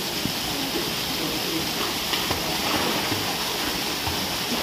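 Steady rushing water, with faint voices in the background.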